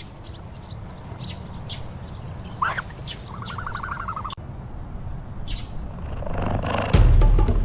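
Wild birds chirping and calling over a steady low rumble of outdoor ambience. One brief call comes about two and a half seconds in, then a short warbled call about a second long. Near the end, loud drum-heavy music starts.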